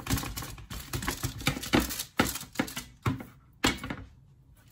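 Hands patting and pressing a thin sheet of dough flat on a parchment-lined metal baking tray: a quick, irregular run of light taps that dies away about three and a half seconds in.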